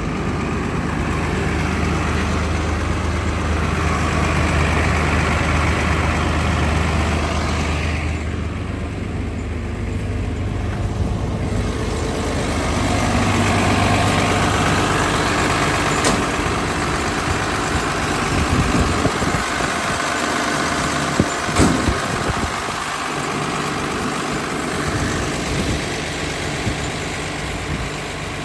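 Komatsu PC360LC-11 excavator's diesel engine running steadily, its note shifting about a third of the way in. A few sharp knocks sound about three quarters of the way through.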